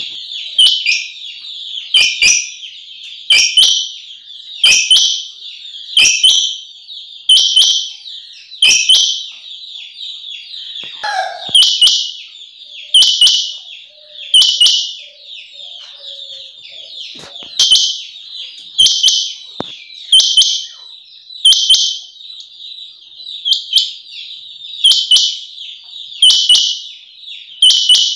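Female rain quail calling: sharp, high, loud calls repeated about every second and a half. A fainter high chatter carries on between them, and there is a short break in the calls midway.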